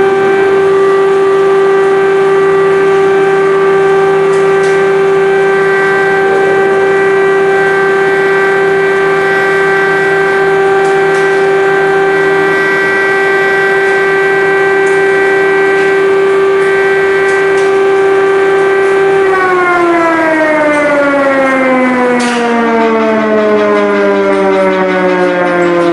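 Air-raid siren sounding one long, loud, level tone, then winding down with slowly falling pitch over the last several seconds. It is the alarm signal warning of a missile or air attack and calling people to shelter.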